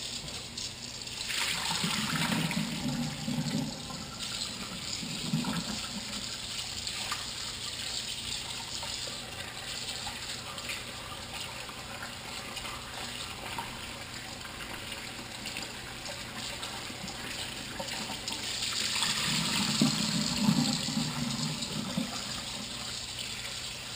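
Kitchen faucet running into a bowl of catfish fillets in a stainless steel sink, with splashing as hands rub the meat under the stream to rinse the blood out. The splashing grows louder about a second in and again near the end.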